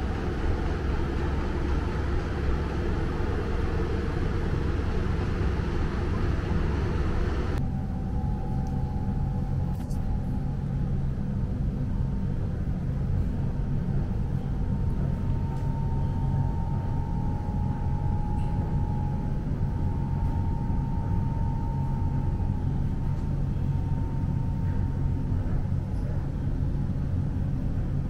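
Steady low rumble of a vehicle in motion. About eight seconds in, the sound changes abruptly, the hiss above the rumble dropping away, and faint steady tones then sit over it.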